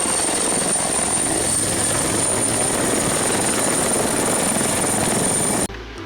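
Helicopter sound: fast rotor chop over a dense engine noise, with a steady high turbine whine. It cuts off abruptly near the end.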